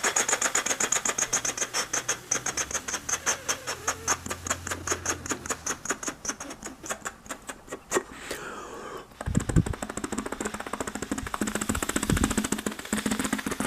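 A person's mouth-made imitation of a helicopter: a rapid, even chopping of about seven pulses a second. Around eight seconds in a whistling tone slides down in pitch, and the chopping then resumes with deep thumps under it, imitating the helicopter coming down to land.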